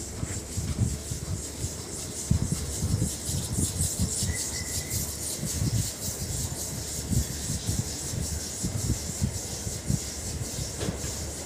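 Footsteps thudding on the loose coal floor of an underground mine roadway, over a steady hiss and rattling from the mine's machinery and air. A short high squeal sounds about four seconds in.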